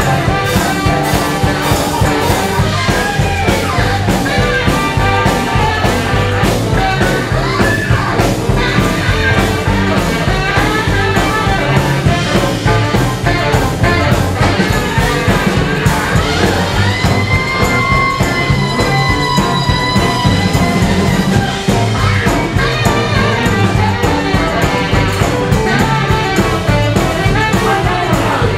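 Live jump-blues band music: a tenor saxophone solo over a driving beat of drums and a bass line. One long high note is held for several seconds past the middle.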